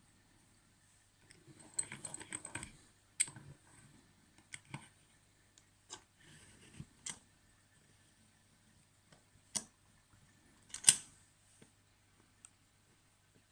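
Small metal clicks and short rattles from a Yale disc-tumbler padlock and lock-picking tools being handled, a busy flurry about two seconds in and the sharpest click near eleven seconds.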